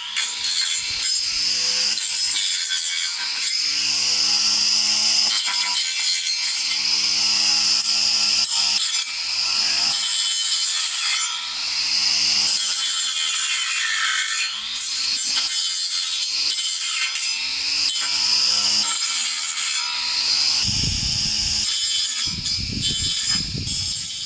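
Airbike cordless string trimmer running at speed, its spinning line whirring as it cuts weeds around a tree trunk. The pitch dips briefly about halfway through, and rougher low rumbling comes in near the end.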